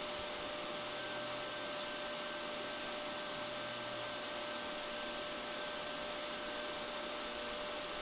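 Vacuum cleaner running steadily: a constant hiss with a steady whine over it.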